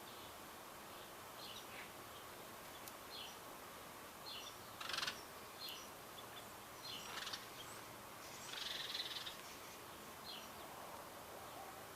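Garden birds calling: scattered short chirps, with louder calls about five and seven seconds in and a longer, harsher call around nine seconds.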